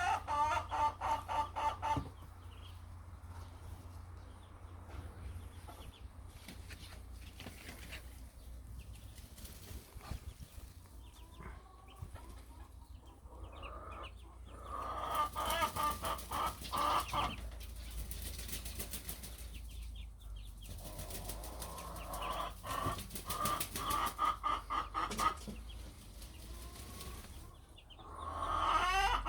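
Ducks quacking in several quick runs of repeated calls, with quieter stretches between the runs.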